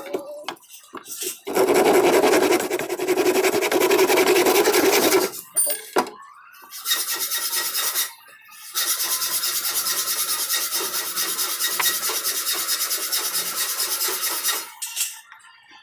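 Hand saw cutting a wooden quarter-round molding in a miter box, rasping back-and-forth strokes through the wood. A first bout of about four seconds, then after a pause a longer bout of about eight seconds with a brief break partway.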